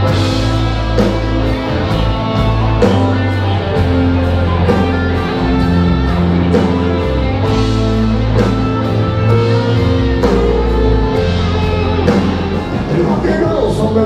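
Live rock band playing an instrumental passage, a Telecaster-style electric guitar to the fore over bass and a steady drum beat.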